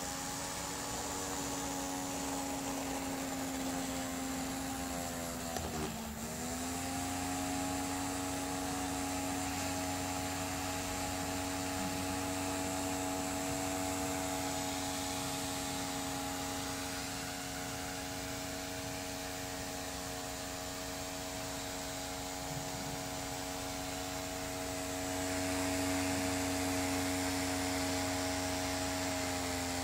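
Small electric motor spinning the lift fan of a homemade model hovercraft, making a steady whirring hum as it blows air into the skirt. The pitch sags briefly about six seconds in and comes back up, and the hum grows a little louder near the end.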